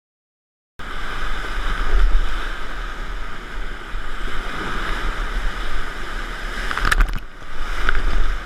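Whitewater rapid rushing and crashing around a kayak running through it, heard from a camera on the boat, with a heavy low rumble of water and wind buffeting the microphone. It cuts in after a moment of silence, and a couple of sharp slaps of water come near the end.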